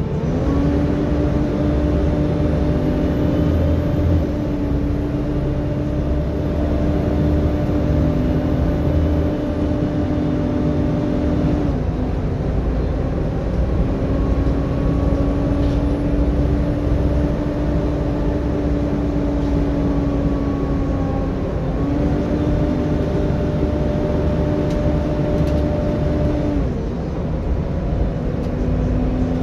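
Volvo B7TL double-decker bus heard from inside on the move: its engine and cooling fan running with a steady pitched drone over low rumble and road noise. The drone holds at one pitch for several seconds at a time, breaks and resettles about 12 and 22 seconds in, and drops away near the end.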